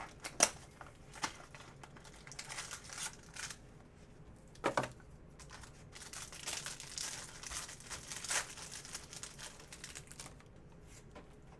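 Trading-card packaging being torn open and its plastic wrapper crinkled, with a few sharp clicks and a longer stretch of crinkling in the second half.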